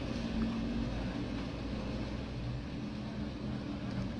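Steady low background hum and rumble with faint hiss, with no distinct sounds standing out.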